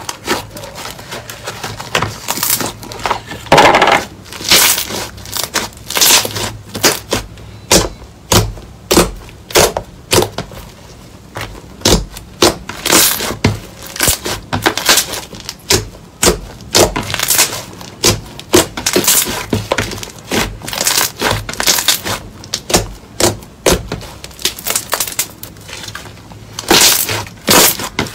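Pink slime squeezed and kneaded by hand, giving loud, irregular pops and crackles, several a second.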